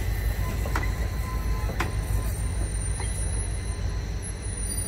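Reading and Northern passenger coaches rolling slowly past on curved track: a steady low rumble with a few sharp wheel clacks about a second apart.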